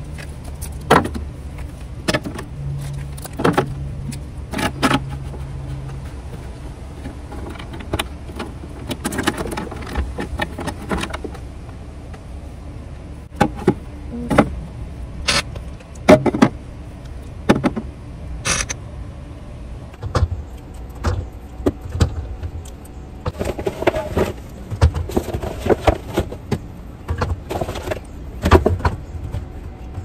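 Plastic drink bottles and cans being set into a refrigerator's plastic door bins and shelf organiser: a string of irregular knocks and clunks. Under them runs the steady low rumble of a construction machine's engine.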